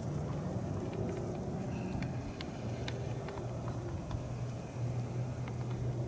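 A motor vehicle's engine running, a steady low hum, with faint scattered ticks above it.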